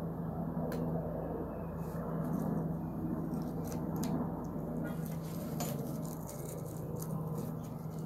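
Scattered light metal clicks and scrapes as a bearing puller is fitted and worked on a go-kart's front spindle to draw off a seized wheel bearing, over a steady low hum.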